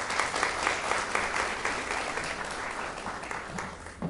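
Audience applauding, fading away over the last second, with a brief thump right at the end.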